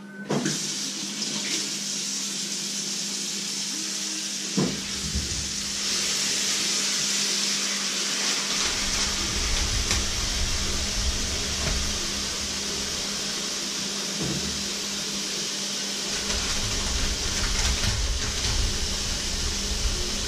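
Kitchen tap running steadily into a sink, with a single knock about four and a half seconds in.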